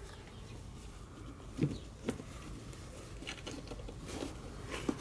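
A cat pawing and nosing at a cardboard box: a scatter of light scratches and taps on the cardboard, the two loudest about one and a half and two seconds in.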